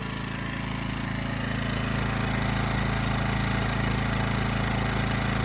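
Westinghouse iGen2000 inverter generator running steadily in eco mode with no load, heard right at the unit. It grows slightly louder over the first couple of seconds, then holds an even engine note.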